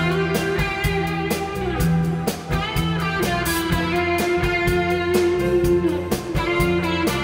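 Band playing instrumental music: electric guitar over bass and a drum kit keeping a steady beat.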